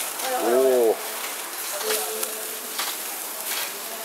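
A voice calls out loudly for about a second at the start. After that a hand-held firework hisses and crackles steadily as it sprays sparks.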